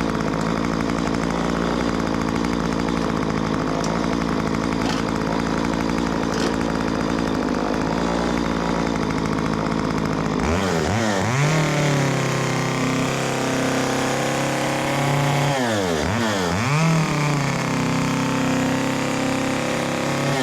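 Chainsaw running at a steady low speed for about half the time, then revved higher with its pitch rising and falling as it cuts slots into a wooden carving. The revs dip sharply twice near the end.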